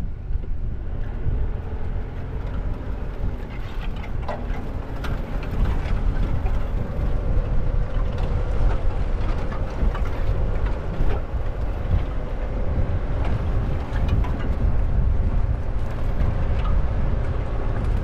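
A car driving, picked up by a GoPro Hero 10 Black's own microphone while the camera is mounted on the car: a heavy, unsteady low rumble of road and wind noise with frequent small knocks. A faint steady hum joins in about six seconds in.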